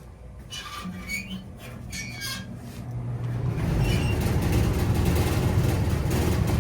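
Adhesive tape pulled and pressed in short squeaky rasps as it goes on, then a steady low mechanical rumble builds up from about halfway through and stays on.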